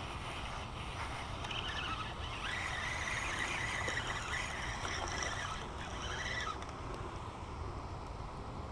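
A spinning reel cranked steadily, whirring for a few seconds in the middle, as a hooked white bass is reeled in. Under it is a steady low rumble of wind on the microphone.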